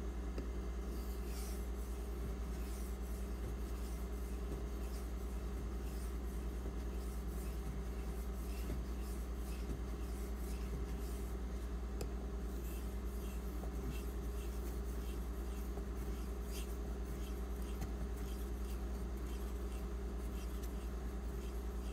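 Knife blade stroked across the wet 6000-grit side of an Imanishi combo waterstone: soft, repeated light scraping strokes over a steady low hum.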